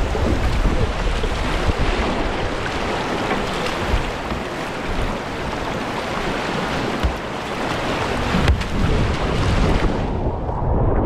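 Rushing whitewater of a river in spate, a steady roar of churning water with wind on the microphone. About ten seconds in the hiss drops away and the water sound turns muffled and low.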